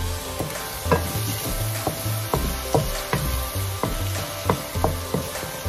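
Eggs, sliced fermented pork sausage and Chinese kale sizzling in oil in a stainless steel frying pan. A wooden spatula stirs and scrambles the eggs, knocking and scraping against the pan about twice a second.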